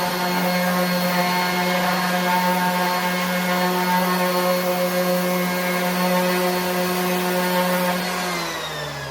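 RIDGID 18-volt cordless 5-inch random orbit sander running steadily, its pad sanding across old wood against the grain. About eight seconds in it is switched off and its motor winds down, the pitch falling.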